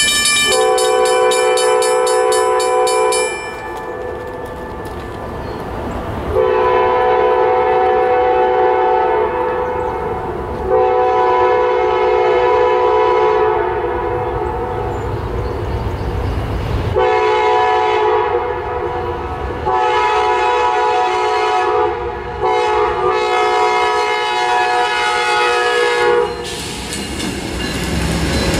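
Amtrak locomotive's air horn sounding a series of long chord blasts for the grade crossing, about six in all. Near the start the crossing signal bell rings under it. Near the end the train reaches the crossing and the rumble of the locomotive and wheels takes over.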